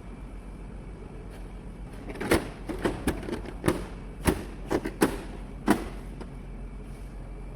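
A run of sharp knocks and clicks, about eight or nine within three and a half seconds, over a steady low hum.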